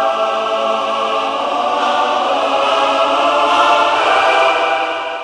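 Background music: a sustained choir-like chord held steadily, fading out near the end.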